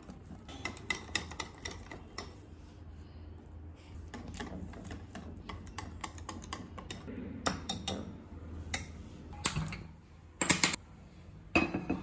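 Wire whisk clicking and scraping against a glass bowl while mixing gram-flour (besan) batter, as quick, irregular ticks. Near the end come two louder, short bursts of noise.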